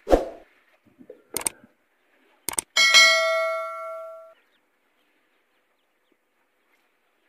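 Subscribe-button animation sound effect: a few sharp mouse-like clicks, then about three seconds in a bell ding that rings for about a second and a half as it fades.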